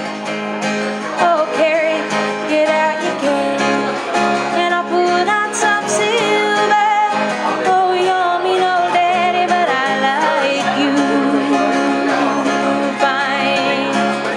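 A woman singing, with wavering held notes, over a strummed acoustic guitar.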